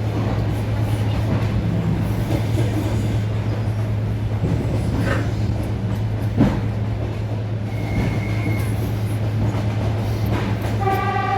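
Suburban electric train running, heard from inside the carriage: a steady low hum with a rough rumble of the wheels on the track. There is a sharp knock about six seconds in, and a held pitched tone starts near the end.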